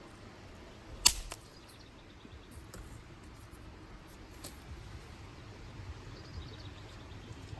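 A dry stick snapping with one sharp crack about a second in, followed by a smaller crack a few seconds later.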